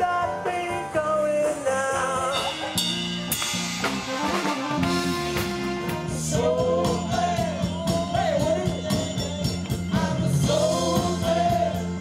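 Live band music with a singer and a drum kit; a steady beat comes in about five seconds in, with the singing over it.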